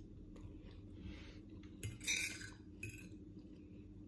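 Metal fork and knife clinking and scraping against a ceramic plate, with the loudest scrape about two seconds in.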